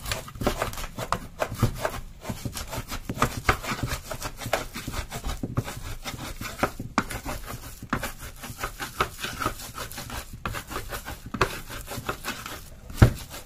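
Stone pestle grinding and crushing garlic, shallots and candlenuts into a spice paste on a clay mortar (ulekan on cobek): a quick, irregular run of rubbing scrapes and small knocks, with one louder knock near the end.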